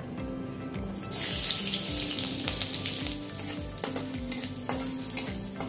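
Chopped garlic dropped into hot oil in a kadai: a sudden loud sizzle about a second in that slowly dies down, with a spatula clicking against the pan as it is stirred.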